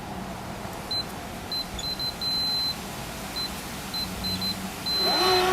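Schlage keypad deadbolt beeping as its keys are pressed: a string of short high beeps with two longer beeps, the second near the end. A motor-like hum starts just after that, as the bolt is driven.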